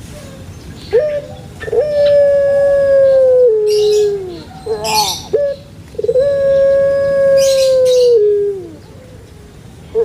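A bird singing in two long, drawn-out calls. Each call is held steady for about two seconds, then steps down and falls away in pitch, and short rising notes lead into it. Brief high, hissy chirps come in between.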